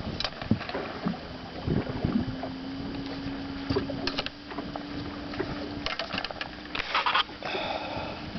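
Knocks and clatter of handling gear in a small fishing boat, over a steady hum that starts about a second in and fades near the end, with a louder rattle toward the end.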